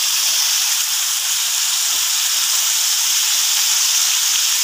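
Thick shrimp curry with green beans, potato and baby corn sizzling in the pan over the heat: a steady, even hiss.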